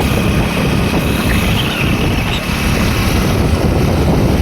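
Steady wind noise on the microphone over the running of a moving vehicle.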